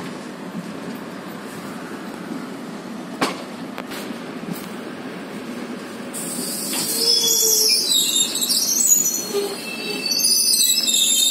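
Passenger train running with a steady low rumble and a single click about three seconds in. About six seconds in, a loud, shrill, wavering squeal of the train's wheels on the rails begins, as the train comes into the station.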